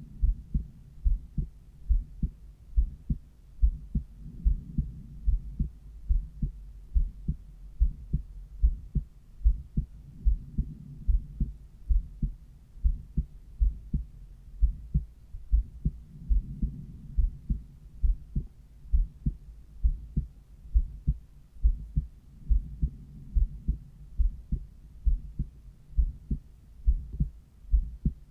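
A human heart heard through a cardiology stethoscope over the pulmonary valve area: a steady, regular lub-dub of low, dull thumps. A faint low rushing swells and fades about every six seconds.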